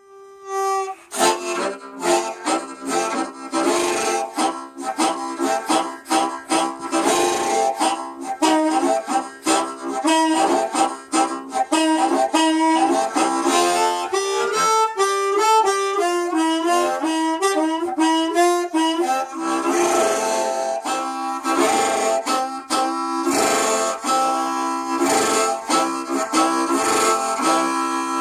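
Harmonica playing: a held note, then from about a second in a fast, busy run of notes and chords.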